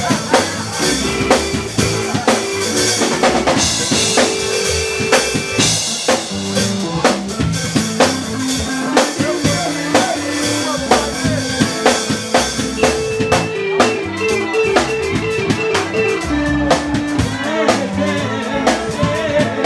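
Soul band playing, a drum kit with snare and bass drum keeping a steady beat under a moving bass line.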